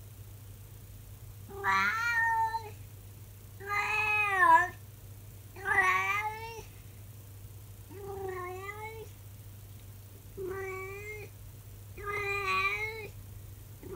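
Elderly calico cat howling: six drawn-out meowing calls, each about a second long and coming roughly every two seconds, the first three the loudest.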